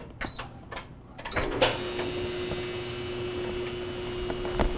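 Control-panel beeps and clicks on a GE gas dryer as it is started, then the dryer starts up about a second and a half in and runs with a steady hum, restarted to check whether the thumping from a lint ball caught between the front bearing and the drum comes back.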